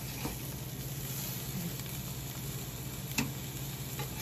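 Yellowtail fish sizzling on an electric grill, over a low steady hum. Metal tongs click against the wire grate a few times, most sharply about three seconds in.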